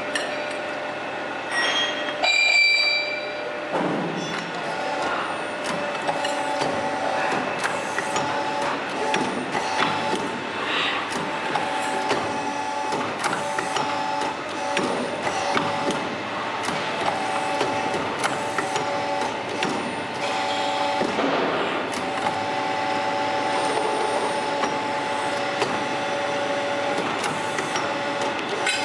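Hydraulic pipe bending machine working through its bend cycles: a hum that comes and goes with each stroke, with clicks and metallic clanks as the tube is clamped and bent. A short high squeal sounds about two seconds in.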